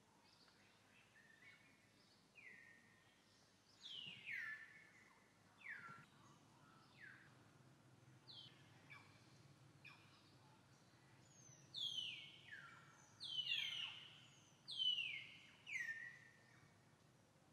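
Bird calls: a series of short whistled notes, each sliding sharply down in pitch, scattered at first, then about five louder ones in quick succession in the second half.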